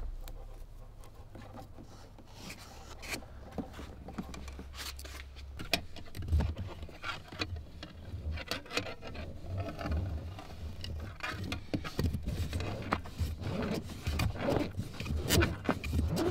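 Mechanic's wire and a wiring-harness connector being pulled through a rubber firewall grommet by hand: irregular rubbing and scraping with small clicks, busier from about halfway through.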